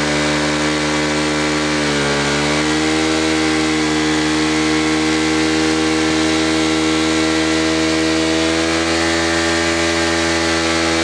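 Bajaj Pulsar NS200's single-cylinder engine held at high revs during a burnout, its pitch dipping briefly about two seconds in and then holding steady.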